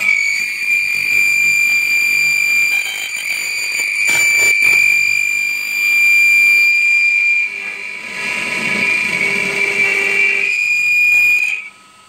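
A hand scraping tool pressed against a small acrylic knob spinning in a lathe's Jacobs chuck, giving a loud, steady, high-pitched squeal. It starts abruptly, dips briefly past the middle and cuts off near the end. This is tool chatter, which the turner puts down to vibration on the unhardened spindle and to scraping rather than cutting.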